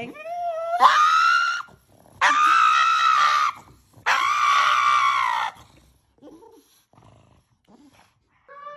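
A pug screaming dramatically in distress: three long, high-pitched screams, the first sliding up in pitch, then a few faint whimpers.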